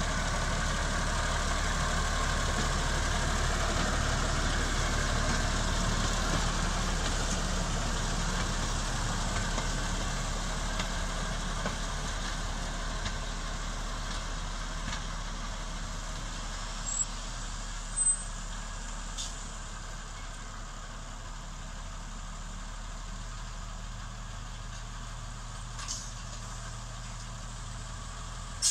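Mk48 narrow-gauge diesel locomotive running light, its engine note slowly fading as it moves away along the track. Two brief high chirps sound a little past the middle.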